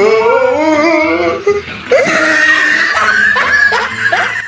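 A young man's voice wailing in a long, wavering, tearful sing-song, like exaggerated crying set to a tune.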